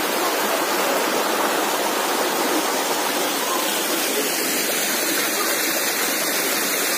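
Stream water rushing over rocks: a steady, even rush.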